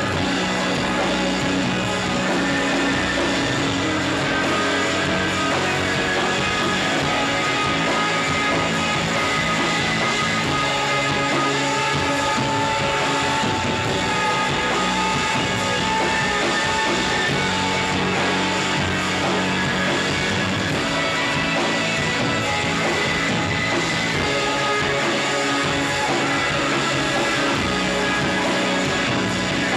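A rock band playing live, a dense, steady wall of electric guitars with long held notes, in a shoegaze style.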